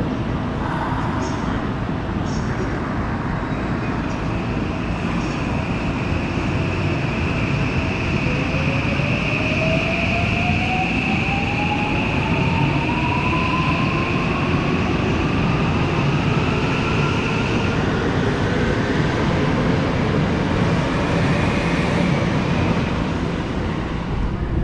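Electric commuter train accelerating along a station platform, its traction motors whining in a pitch that rises steadily for about fifteen seconds, over a continuous rumble of wheels on rails. A steady high tone runs alongside for the first three-quarters and stops before the end.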